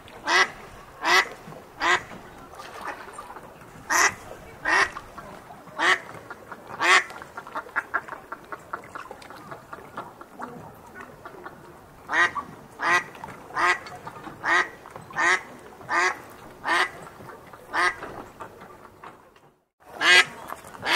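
Duck quacking: runs of loud, short quacks about one to one and a half a second. In the middle there is a stretch of softer, quicker chatter. There is a brief break near the end before the quacking resumes.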